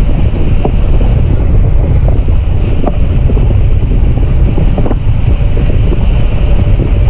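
Wind buffeting the microphone of a pole-mounted GoPro in flight under a tandem paraglider: a loud, steady low rumble with hiss above it.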